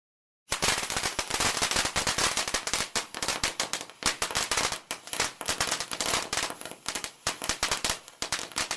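Fire crackling: a dense, irregular run of sharp pops and snaps that starts abruptly about half a second in.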